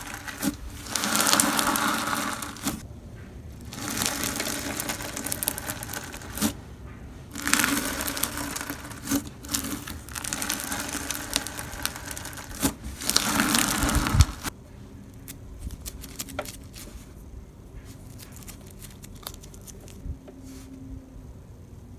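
Slime being worked by hand, giving several bursts of crinkly, crackling squishing noise separated by short pauses, then only faint scattered clicks and pops for the last several seconds.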